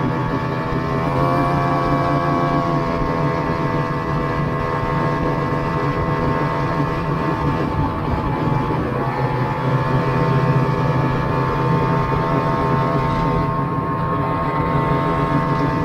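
Snowmobile engine running steadily at cruising speed, heard from the rider's seat. Its pitch rises about a second in and dips briefly about nine seconds in before picking back up.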